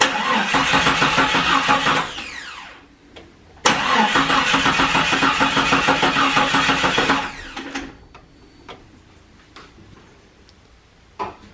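2000 Jeep Cherokee XJ's 4.0 L inline-six cranked by the starter twice, for about two and a half and three and a half seconds, spinning down each time without catching. This is the crank-but-no-start fault, which the new crankshaft position sensor has not cured.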